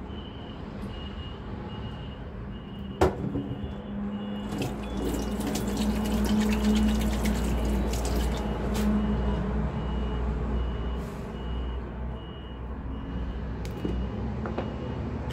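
A steady run of short, evenly spaced high beeps like a reversing alarm, with a low engine-like rumble swelling in from about four seconds in and easing off after about ten. A single sharp knock comes about three seconds in.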